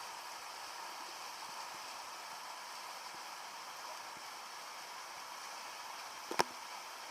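Steady rushing of a mountain stream's flowing water, with a single sharp click about six seconds in.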